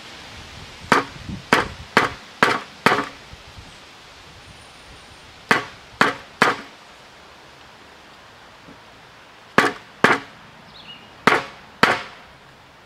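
About a dozen sharp knocks of a wooden block driving a replacement ball bearing down onto an air conditioner fan motor's shaft. They come in groups: five at about two a second, then three, then two pairs near the end, as the bearing is worked the last quarter inch into place.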